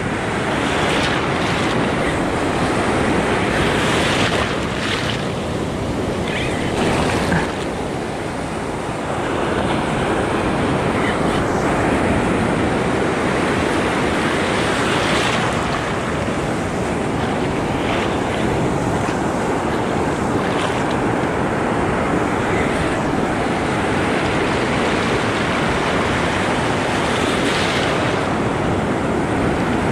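Ocean surf breaking and washing around the wader's legs in a steady, loud rush.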